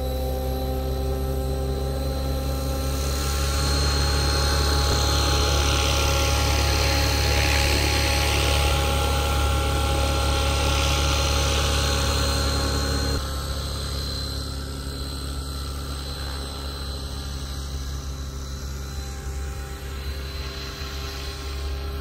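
Electric Align T-Rex 600 DFC Pro RC helicopter hovering: a steady motor whine with the buzz of the rotor blades. It is louder through the first half and drops abruptly about 13 seconds in, then carries on quieter.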